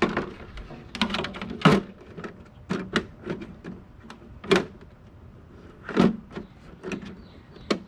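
Plastic body shell of a Traxxas X-Maxx being fitted and pressed down onto the truck's chassis: about ten irregular hollow plastic knocks and clicks.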